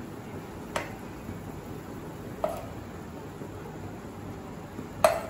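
A steel spoon knocking against a non-stick frying pan three times, the last knock the loudest near the end, as chicken pieces are turned in the pan, over a steady faint hiss.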